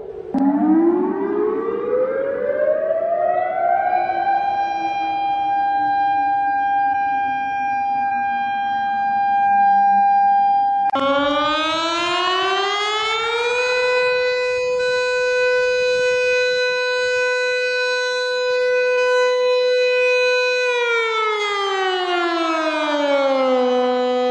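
Civil defense siren wailing. One tone winds up over about four seconds and holds while a lower tone slides down beneath it. About halfway through it cuts abruptly to a second siren tone that rises, holds steady and winds down near the end.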